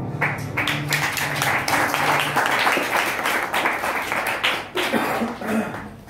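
Theatre audience applauding: a dense patter of clapping that thins out and fades away near the end.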